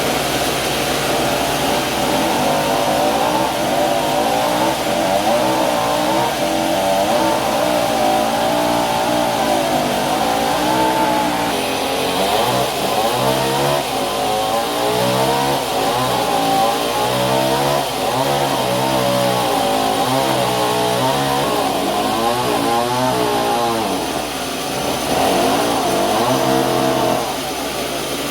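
Engine-driven sawmill running, its engine note rising and falling over and over as the load changes.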